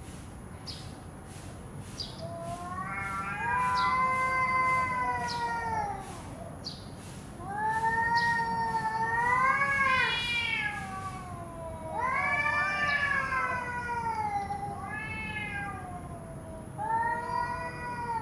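Domestic cats in a standoff, yowling: about five long, wavering wails that rise and fall in pitch, an angry threat call. A faint high whine and soft ticking run underneath.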